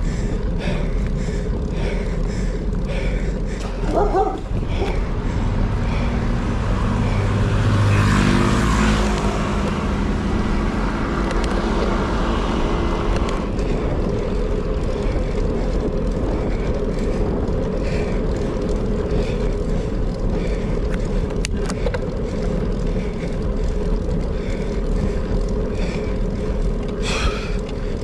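Steady wind and road noise on the microphone of a moving rider. A motor vehicle passes, swelling and fading about six to thirteen seconds in.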